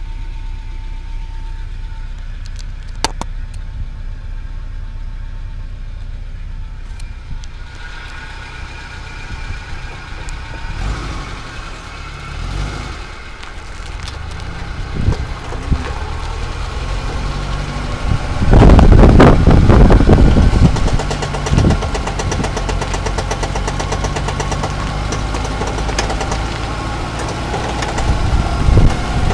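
Suzuki Vitara engine running with a steady low hum; from about eight seconds in the car is moving and an irregular knocking, ticking noise comes from around the front wheel, swelling loudly for a couple of seconds past the middle. The owner hears it only in 4H, not in 4L, and fears a broken differential.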